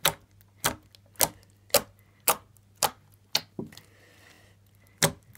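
Fingertips poking into a soft, sticky butter slime, giving a run of short, sharp wet pops about two a second, as air pockets squish out. The pops stop for about a second before two more come near the end.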